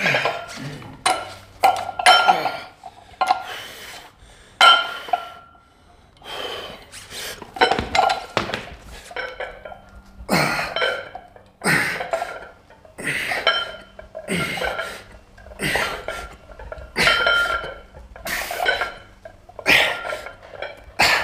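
A man straining through repetitions of a heavy shoulder lift: forced grunts and hard exhalations about once a second, with metal clinks from the weights.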